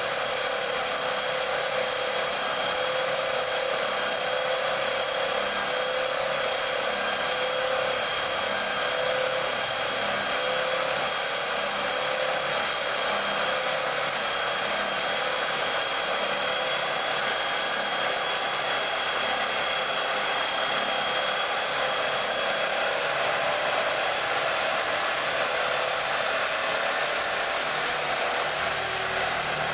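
Homemade sanding machine powered by an electric hand drill, running steadily while sanding a wooden board: a constant hiss with a steady motor whine.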